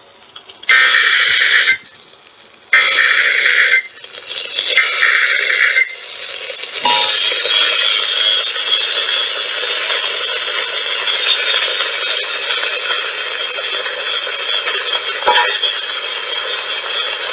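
Emergency Alert System broadcast tones on FM radio: three short screeching bursts of the digital SAME header about a second apart, then, about seven seconds in, the steady two-tone attention signal, which holds to the end. The sound is distorted and jumbled from being picked up off a radio by a computer webcam microphone.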